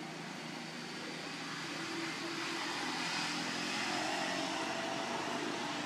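Distant engine drone swelling gradually louder toward the middle, like a motor passing by.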